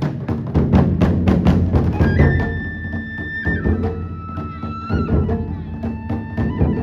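Japanese taiko drums beating rapidly. About two seconds in, a Japanese transverse flute (fue) enters with a high, held melody that steps between notes over softer drumming.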